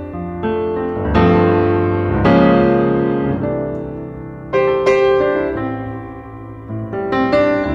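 Background piano music, chords struck every second or so and left to ring and fade.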